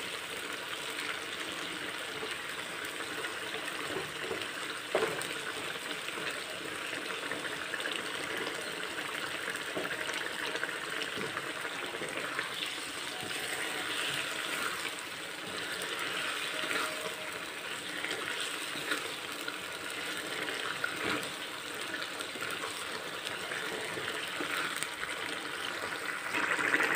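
Mustard-green and ash gourd curry bubbling in a watery broth in a wok, with a spatula stirring through it and mashing pieces of ash gourd to thicken the broth, giving a couple of light knocks against the pan.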